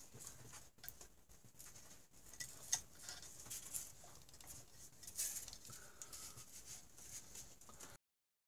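Faint rustling, scraping and light clicking of the stator wires and their rubber grommet being fed through the engine case by hand. The sound cuts off suddenly near the end.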